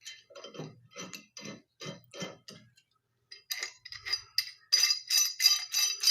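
Steel pipe wrench clinking as it is worked by hand after reassembly: a run of even clicks about two a second, then, after a short pause, quicker ringing metal-on-metal clinks about four a second.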